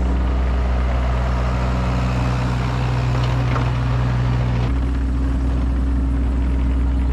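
Engine of a piece of compact earth-moving equipment running steadily close by, its pitch shifting about two-thirds of the way through as the engine speed or load changes.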